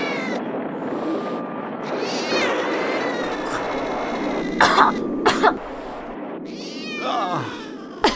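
A cat meowing and yowling in drawn-out, wavering calls during a scuffle, with a few short, sharp noisy bursts near the middle.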